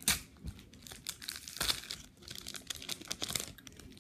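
Foil Pokémon card booster pack being torn open and crinkled by hand: irregular crackling and ripping, with the sharpest rips right at the start and about a second and a half in.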